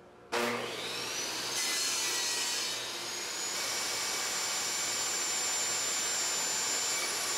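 Table saw switched on: the motor starts suddenly and whines up to speed over about a second, then runs steadily with a high whine.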